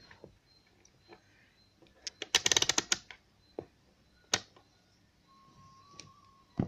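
A quick run of sharp plastic clicks about two seconds in, then a few single clicks and taps, as a multimeter and test leads are handled to check an adapter's output voltage. A faint steady tone starts about five seconds in.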